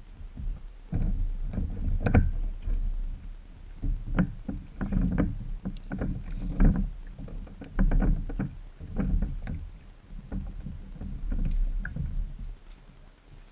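Irregular thumps and knocks of a person moving about on the wooden deck of a small home-built catamaran, kneeling, then standing and walking, carried through the boat to the camera mounted on it.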